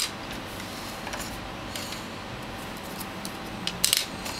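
Small plastic clicks and snaps from a T-Mobile G1 phone's casing being wiggled and pried apart: a few scattered ticks, with a sharper cluster of clicks near the end.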